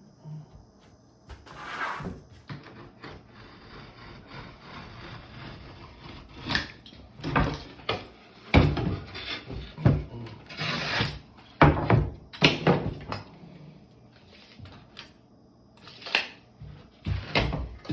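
Drywall patch pieces being cut and handled on a wooden workbench: irregular scraping and sharp knocks, the loudest clustered in the second half.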